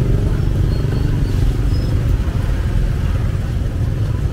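Steady low rumble of a road vehicle running.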